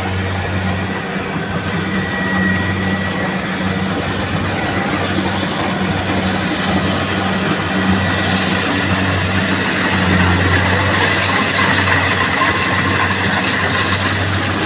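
Rice combine harvester running: a steady engine drone under the clatter of its machinery, getting a little louder about halfway through.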